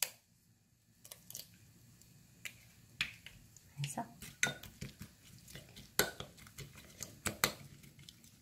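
An egg cracked against a ceramic bowl, then a wooden spoon beating it with shredded vegetables, the spoon knocking irregularly against the bowl in quick taps.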